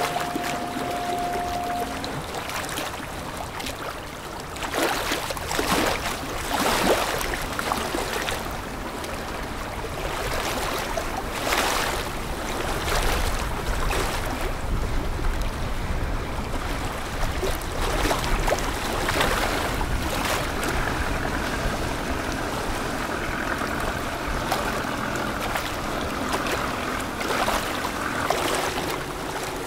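Rushing, splashing river water with surges of wash as the Vietnam Fisheries Resources Surveillance ship KN-290 passes and its bow wave churns the water. A steady higher hum comes in about two-thirds of the way through.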